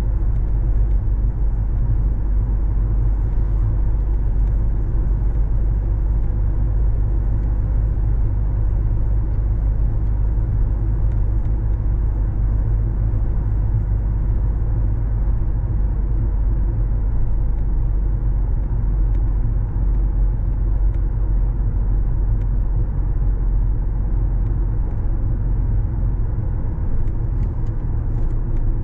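Steady low rumble of a car driving along a road, engine and tyre noise with no change in pace.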